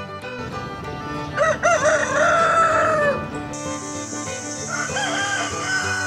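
Rooster crowing twice, cock-a-doodle-doo: a loud crow about a second and a half in, and a second, fainter one near the end, over background music.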